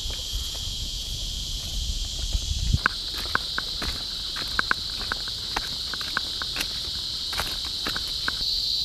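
A steady, high-pitched insect drone, with footsteps crunching on a stony, gravelly trail as short irregular clicks from about three seconds in. A low rumble sits under the first few seconds.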